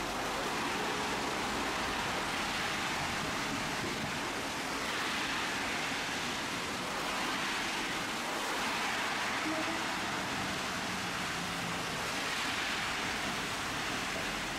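Steady hiss of heavy rain heard aboard a Tosaden streetcar, with the tram's low running noise underneath.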